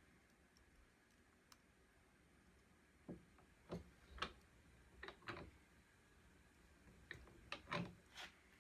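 A hand-cranked jeweller's rolling mill working a small bar of 14k gold into wire, heard as about nine light clicks and knocks spread over the second half, with near silence in between.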